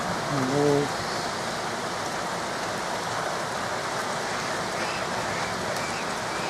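Heavy rain pouring down, a steady even hiss throughout. About half a second in there is a brief hum from a man's voice.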